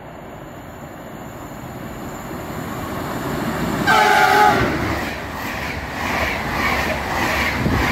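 Siemens Vectron electric locomotive hauling an express passenger train through a station: the rumble grows as it approaches, the horn sounds one short blast about four seconds in, then the coaches rush past with a rhythmic clatter of wheels over the rails.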